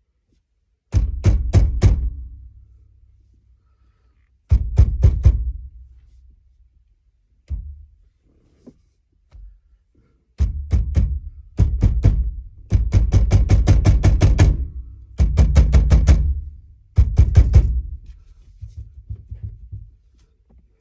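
Repeated heavy blows against a stuck Jeep Wrangler steering wheel to break it loose from the steering shaft, the retaining nut left partly on: bursts of several rapid thumps a second with a low boom after each, separated by short pauses.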